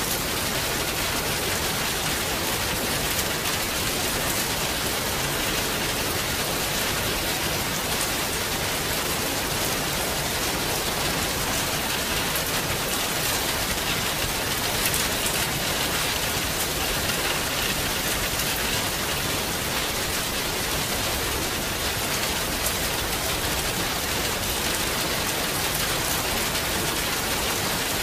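Steady rain falling on a surface: an even hiss with a few sharper drop taps now and then.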